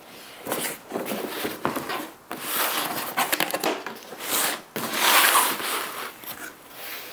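Packing tape being ripped off a cardboard shipping box and the box being handled and opened: several rasping tears and cardboard rustles and scrapes.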